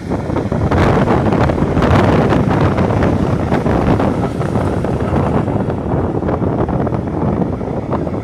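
Mixed freight train of sliding-wall wagons and tank cars rolling past, a loud steady rumble of wheels on rail with many quick clacks, with wind on the microphone.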